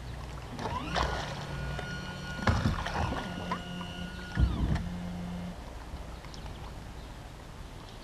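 A boat's motor humming with a steady whine that cuts off about four and a half seconds in, along with a few sharp knocks in the boat.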